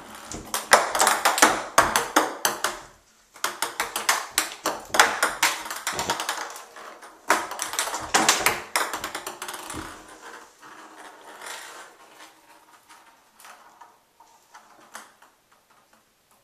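Ping pong ball batted around an empty jetted bathtub by a kitten, bouncing and rattling in quick runs of light clicks. There are three busy runs in the first ten seconds, then fewer, fainter clicks as the ball slows.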